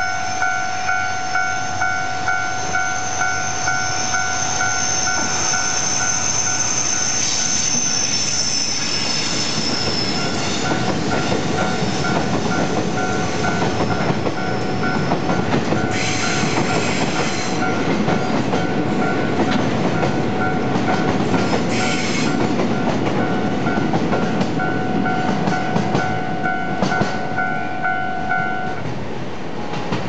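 A level-crossing warning bell dings steadily about twice a second and stops shortly before the end. A freight train of black tank wagons hauled by an EF200 electric locomotive rolls through with a heavy rumble of wheels and brief bursts of wheel squeal. A high thin whine is heard over the first several seconds.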